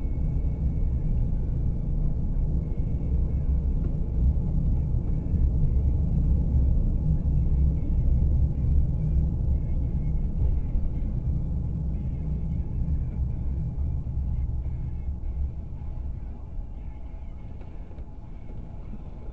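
Car driving, heard from inside the cabin: a steady low road-and-engine rumble that slowly fades over the last few seconds.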